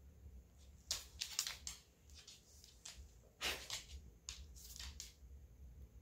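A dog snuffling and nosing into a cat's fur: a quiet run of short, breathy, scratchy sniffs and huffs, several in quick succession about a second in and again from about three and a half seconds in.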